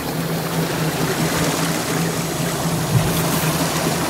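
Boat engine running with a steady low hum under a constant rush of water noise, with a single short knock about three seconds in.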